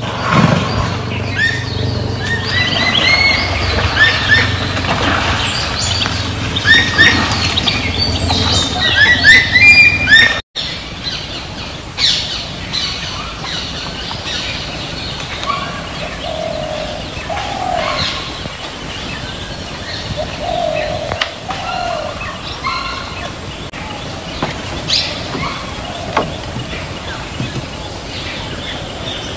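Forest birds chirping and calling: a dense run of quick high chirps over a low steady hum, then, after a sudden break about ten seconds in, sparser chirps and a few lower rising and falling calls repeated in pairs.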